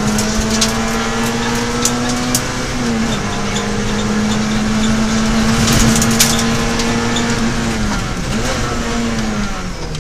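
Onboard sound of a Peugeot 106 XSi rally car's four-cylinder engine running at steady high revs, heard from inside the cabin. The revs dip briefly about two and a half seconds in, and fall with quick blips near the end. A few sharp knocks come from the car over the road.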